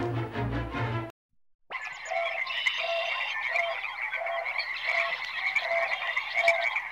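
A short stretch of music cuts off after about a second. After a brief gap, a chorus of frogs starts croaking. One call repeats about twice a second over a dense, steady chirping background.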